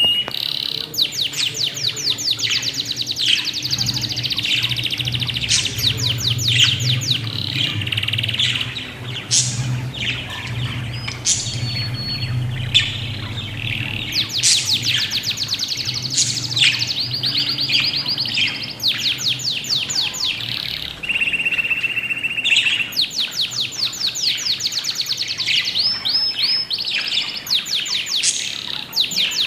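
Budgies chirping almost without pause in rapid trills and repeated sharp notes, with a few held whistled tones. A low hum sits underneath for roughly the first half.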